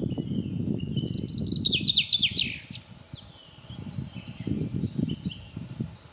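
Forest birds singing, with one bird giving a quick run of falling notes about a second in, and thin chirps around it. Underneath runs a low, irregular crackling noise that fades out partway through and comes back.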